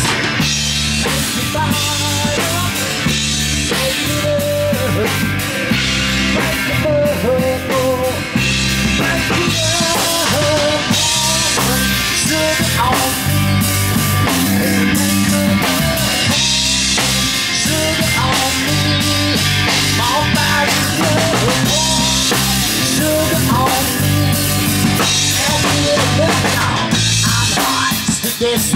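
Live rock band playing an instrumental passage with no vocals: electric guitar lines with bent notes over drum kit and bass guitar.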